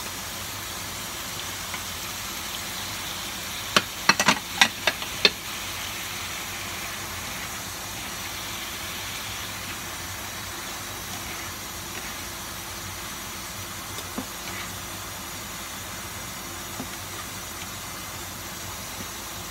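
Chicken, carrot and corn sizzling steadily in a sauté pan. About four seconds in comes a quick run of about six sharp knocks on the pan.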